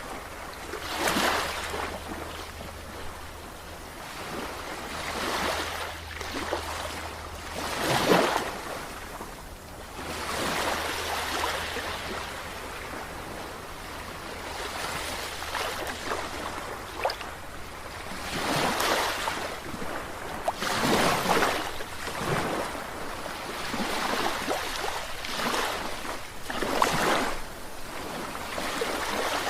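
Sea surf washing in and out, the noise of the waves swelling and falling back in irregular surges every few seconds.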